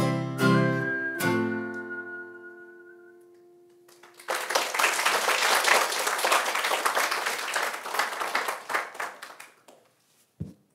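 Acoustic guitar strummed through a last few chords, the final chord ringing out and fading. About four seconds in, audience applause starts and dies away shortly before the end.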